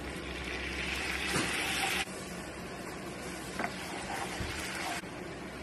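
Butter sizzling and frying in a nonstick pan as a dark sauce is poured in and stirred with a wooden spoon, with a couple of light knocks. The sizzle is loudest for the first two seconds, drops abruptly, and cuts off near the end.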